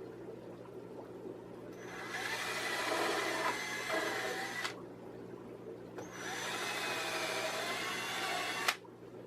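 Power drill boring pilot holes into wooden rack boards, two runs of about three seconds each; the second stops abruptly near the end. The holes are pre-drilled so the wood doesn't split when screwed.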